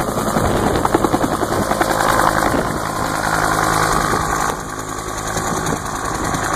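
Bell UH-1 "Huey" helicopter running loudly and steadily, its rotor beating, with a slight drop in loudness about four and a half seconds in.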